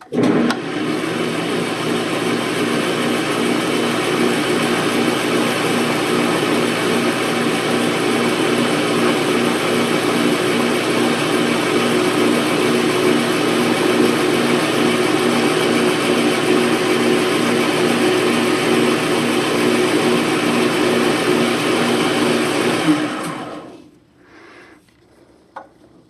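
Atlas metal lathe switched on and running steadily, with a regular pulsing beat in its drive, as a wood-lathe spindle is polished with abrasive on it. About 23 seconds in it is switched off and winds down.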